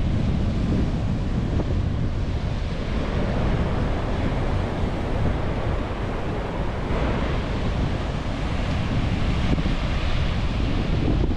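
Wind buffeting the microphone, a steady rushing noise heaviest in the low end.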